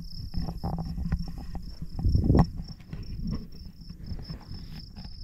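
Insects trilling steadily in a high, evenly pulsing tone, over low rustling and knocks from the handheld camera, with one louder low rumbling thump about two seconds in.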